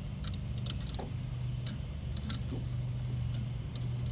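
A few scattered light metal clicks from a wrench turning a brake caliper piston compression tool as it pushes the piston back. A steady low hum runs underneath.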